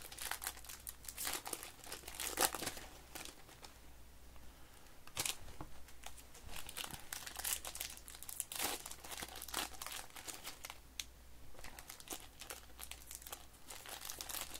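Foil trading-card pack wrappers crinkling and tearing as football card packs are opened by hand, in irregular crackles.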